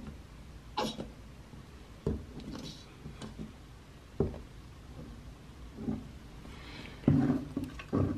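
Plastic Clorox cleaner bottle being squeezed and handled against shower tile: a handful of short, scattered clicks and squirts, several close together near the end.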